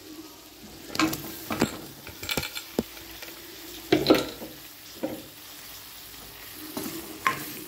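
Chopped snake gourd tipped into a kadai of frying onion-tomato masala and stirred in with a spoon: scattered scrapes and knocks of the spoon against the pan over a light sizzle.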